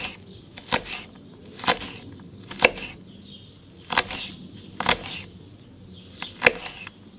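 Chef's knife dicing red onion on a wooden cutting board: a series of about eight sharp, unevenly spaced chops as the blade strikes the board.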